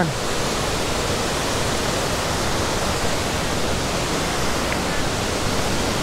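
Mae Ya waterfall, a tall multi-tiered cascade running full at the end of the rainy season, giving a steady, even rush of falling water.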